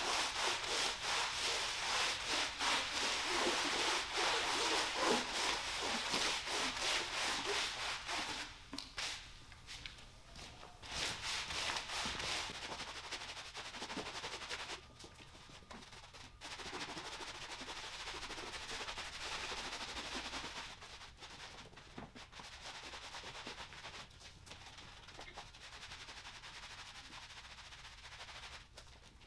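Long-handled scrub brushes working shampoo foam into a wet rug's pile, in back-and-forth strokes. The scrubbing is loudest for the first several seconds, then goes on quieter and more broken up.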